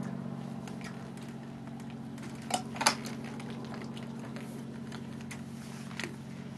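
Sharp metallic knocks and clicks as an outboard motor is handled on its hoist: two louder knocks close together about two and a half seconds in, and a lighter one near the end. A steady low hum runs underneath.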